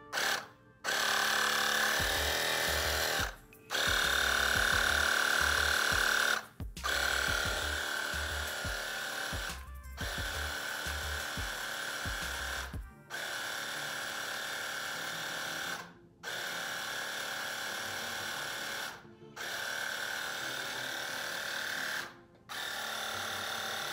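Battery-powered portable air compressor pumping up a basketball in repeated runs of about three seconds, stopping for a moment and starting again over and over. It is cycling on its automatic pressure cut-off: set to 7.5 PSI, it shuts off as soon as it senses back-pressure from the ball.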